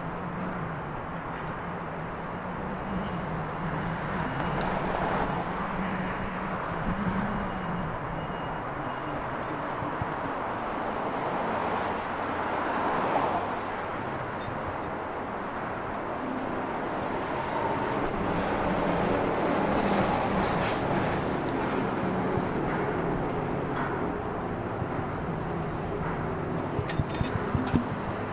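Road traffic: a steady wash of vehicles driving past, swelling as each one passes, with engine hum underneath. A few sharp clicks near the end.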